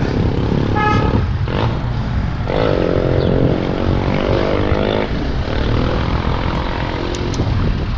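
Wind rumbling on a handlebar action camera while riding through city traffic, with a car engine passing close alongside from about two and a half seconds in. A brief high tone sounds about a second in.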